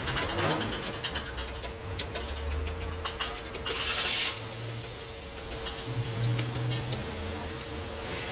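Small hammer tapping rapidly and lightly on the metal housing of a rewound car air-conditioning compressor clutch coil, the taps stopping about three and a half seconds in. A short hiss follows about four seconds in.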